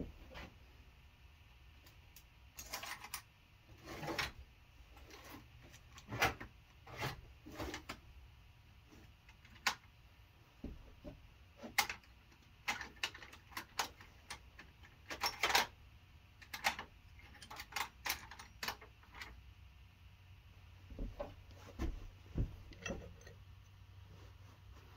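Irregular light metallic clicks and clinks from small steel parts and hand tools being handled. Near the end, these include washers and a lug nut being fitted over a new wheel stud on the axle flange.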